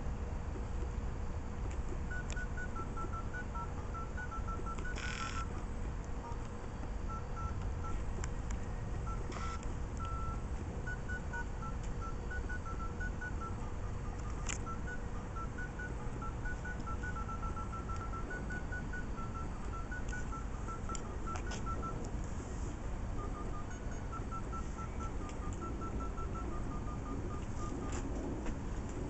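Handheld phone keypad beeping as its buttons are pressed: short beeps at two alternating pitches in quick, irregular runs, over a steady low background rumble.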